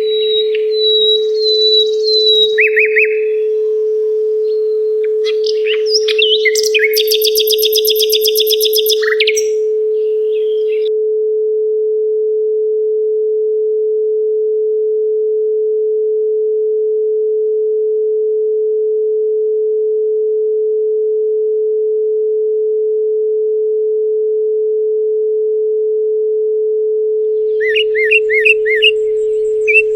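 A steady pure sine tone at 432 Hz, with a songbird singing over it: chirps and a fast trill in the first ten seconds, then the tone alone through most of the middle, and a run of repeated chirps near the end.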